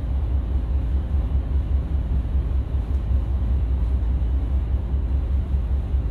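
Steady low rumble of the ferry European Causeway under way, heard from her open deck, with wind buffeting the microphone.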